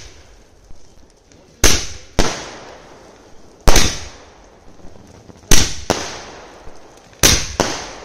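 Firecrackers going off one after another: about seven loud, sharp bangs at uneven intervals, each dying away over about half a second, with a smaller pop near the start.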